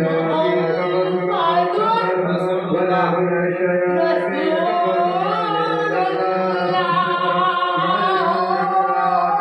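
A voice chanting in long, wavering melodic lines over a steady low drone, without a break.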